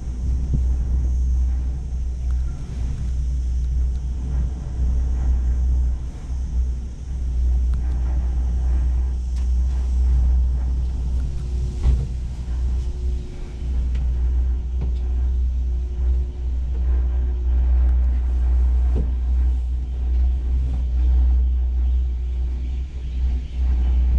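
Steady low rumble inside an enclosed cable car gondola as it travels along its cable, with a faint steady hum for a few seconds midway.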